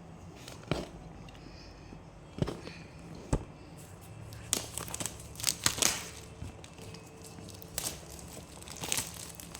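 Packaging of a new smartphone box being unwrapped: plastic wrap crinkling and tearing, with three sharp taps in the first few seconds and clusters of crinkling in the middle and near the end.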